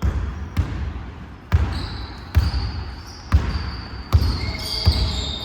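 A basketball being dribbled on a gym floor: about seven sharp bounces, a little under a second apart, each with a low thud ringing in the hall.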